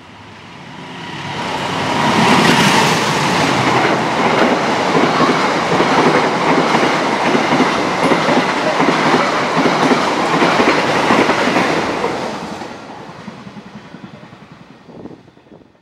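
Diesel-electric locomotive-hauled passenger train passing close by. The sound builds as the locomotive nears, then the coach wheels clack steadily over the rail joints for about ten seconds before the noise dies away as the last coaches go by.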